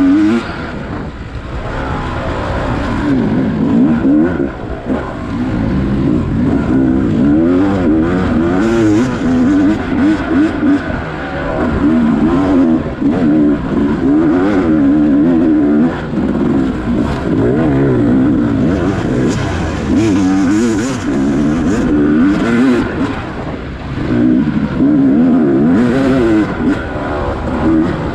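Dirt bike engine under hard riding, its pitch climbing and dropping again and again as the throttle is opened and closed.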